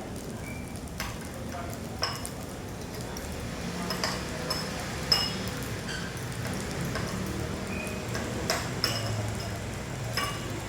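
Fried rice sizzling in a pan while being stirred, with a metal utensil clinking against the pan every second or so, the loudest clink about five seconds in.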